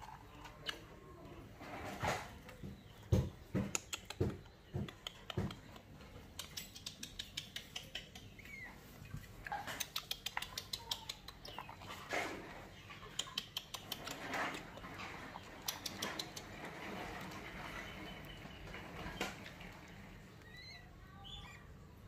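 Light taps and clicks of fingers and a plastic plate while nestling birds are hand-fed, including short runs of quick ticking. Thin, faint cheeping from the chicks, mostly near the end.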